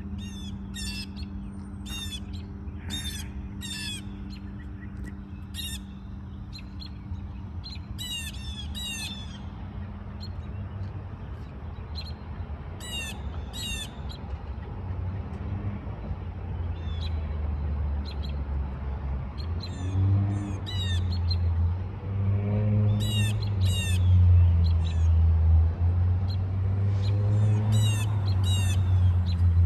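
Small birds calling in clusters of sharp, high chirps repeated on and off throughout. Under them runs a low rumble that builds through the second half and becomes the loudest sound.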